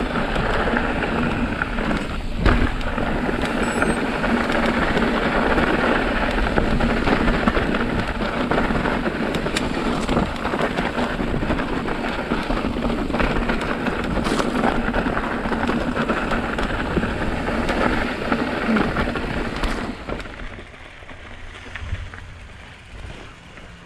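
Mountain bike rolling down a dirt trail: a dense rush of tyre and wind noise with scattered clicks and knocks from the bike clattering over rough ground. The noise falls away sharply about twenty seconds in as the bike slows.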